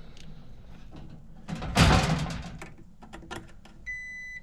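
Clicks and knocks of hands working on a metal HVAC unit, with one loud scraping rush about two seconds in, then a steady high electronic beep near the end.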